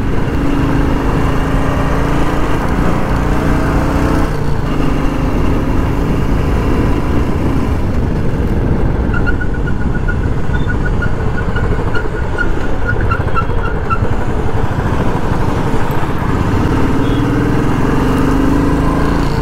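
Royal Enfield Classic 350's single-cylinder engine running steadily under way, with wind and traffic noise around it. About halfway through, a quick run of short high-pitched beeps sounds for a few seconds.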